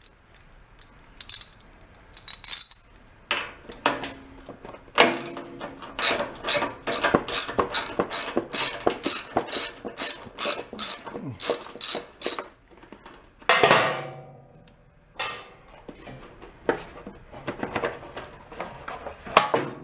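Hand tools at work on a tiller's belt cover: a ratchet wrench clicking in a steady run of about two to three clicks a second for several seconds, between scattered metal clanks, with the loudest clatter about two-thirds of the way in as the cover is handled.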